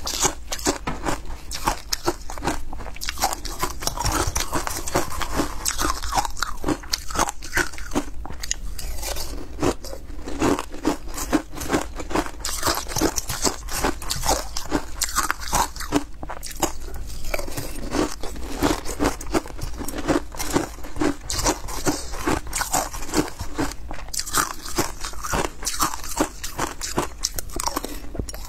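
Close-miked crunching and chewing of matcha ice: one bite after another in quick succession, ice cracking and grinding between the teeth.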